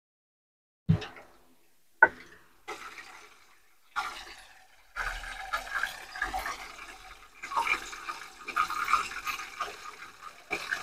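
Whole barramundi frying in hot oil in a pan: after a couple of brief knocks in the first two seconds, the oil sizzles and crackles steadily from about five seconds in.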